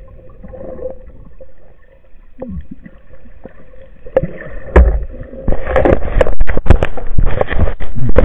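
Muffled underwater sound through a camera's waterproof housing as a spearfishing diver swims: water swishing, bubbles and scattered knocks. About five and a half seconds in it turns loud and crackly, with many sharp clicks.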